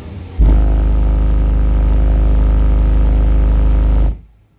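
Two Soundstream X3.12 SPL subwoofers, driven by a Taramps MD 12000.1 amplifier at 0.5 ohm, playing a steady 51 Hz tone in a burp of about three and a half seconds that starts about half a second in and cuts off sharply. The burp reads 145.4 dB on the glass, with about 5,558 watts on the clamp.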